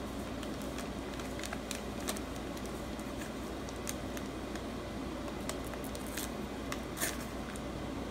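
Hands handling kitchen items and packaging: scattered light clicks and crinkles, the sharpest about seven seconds in, over a steady low hum.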